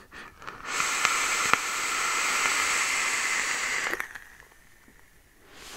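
A long, hissing draw on a Geekvape Zeus X dual-coil rebuildable tank atomizer, its 0.12-ohm coils firing at 68 watts with the airflow about half open. The steady hiss of air through the airflow and coils lasts about three seconds, then stops.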